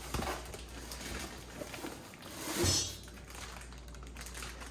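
Rustling and crinkling of foam packing and a plastic bag as a turbocharger is lifted out of its cardboard box, with one louder crinkle a little past halfway.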